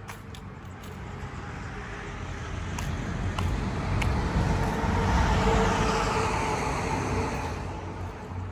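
A road vehicle passing by: its engine and tyre noise grows for about five seconds, peaks, then fades away.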